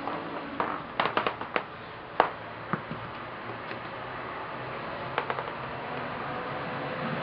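Light taps and clicks from a cat playing with a tennis ball: a quick cluster about a second in, the sharpest tap just after two seconds, and a few softer ones later, over a steady low background hum.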